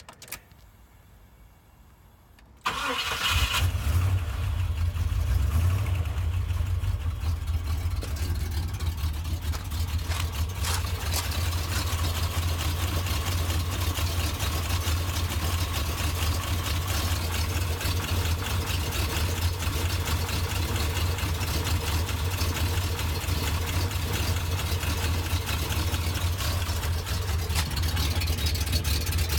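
1991 Jeep Grand Wagoneer's AMC 360 V8, cold-started with its accessory belts removed. It cranks and catches about three seconds in, then idles steadily with the engine knock the owner is trying to trace.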